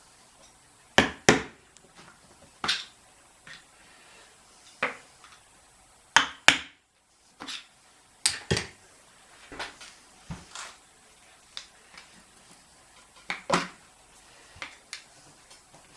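Irregular sharp clinks and knocks, about fifteen over the stretch, of hand tools and metal parts being handled while a 1969 VW Beetle generator is taken apart on a bench.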